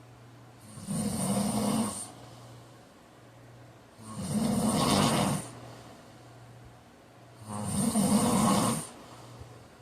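A man snoring loudly in his sleep: three long snores, each just over a second, coming about three and a half seconds apart.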